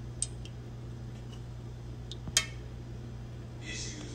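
A utensil stirring melted wax in a metal pot, knocking against the pot's side with a light clink near the start and a sharper one about two and a third seconds in, then a soft scrape near the end. A steady low hum runs underneath.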